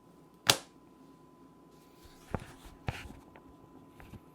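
Soft handling noise: a short rustle about half a second in, then a few light clicks and taps, two of them a little louder around the middle.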